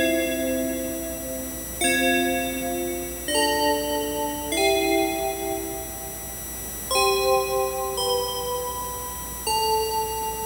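Keyboard music: a Yamaha PSS-A50 piano voice and the Yamaha FM Essential FM-synth app on an iPhone play slow chords. Each chord is held for one to two and a half seconds before the next one comes in.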